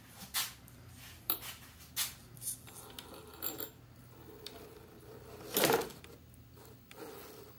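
1/10-scale RC rock crawler creeping over wooden blocks: the 35-turn brushed motor and gear transmission whir faintly at crawl speed while the tyres and chassis knock and scrape against the wood in a string of sharp knocks, the loudest about three quarters of the way through.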